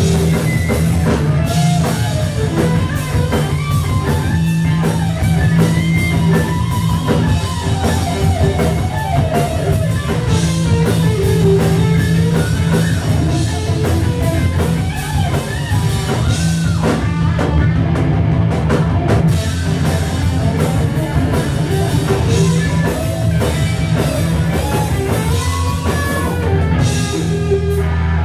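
Heavy metal band playing live: distorted electric guitar through a Marshall amp over drum kit and bass, the guitar carrying a lead line with bending notes.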